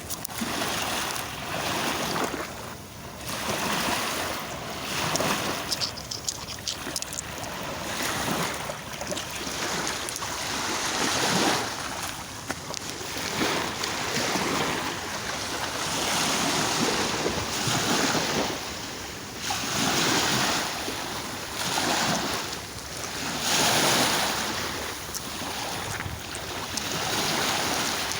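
Sea waves washing onto a shore, the surf swelling and falling back every few seconds.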